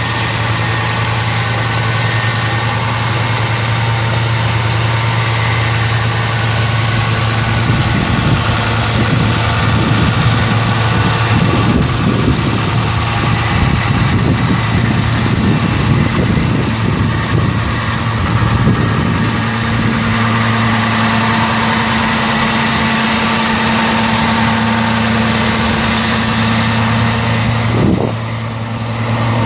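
Cummins eight-cylinder diesel engine of a 1975 Versatile 700 4WD tractor running at a steady idle, rougher and more uneven for a stretch in the middle, with a brief drop in level near the end.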